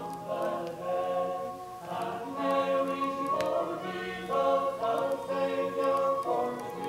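Background choral music: voices singing sustained chords that change every second or two.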